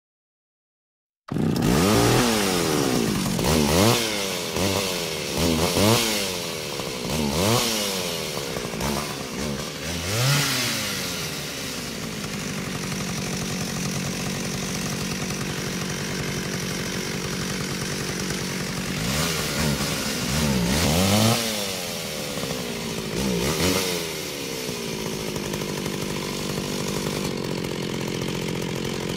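Chainsaw sound effect laid over the video: the saw starts about a second in, revs up and down repeatedly, settles into steady running, and revs a few more times in the second half.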